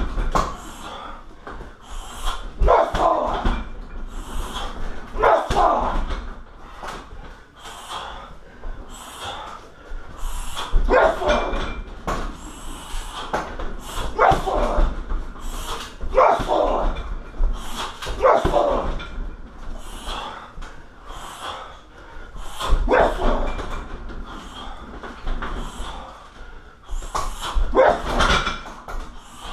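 Shins and fists landing on a 60 kg Everlast heavy bag about every two to three seconds, each strike joined by a loud bark-like cry.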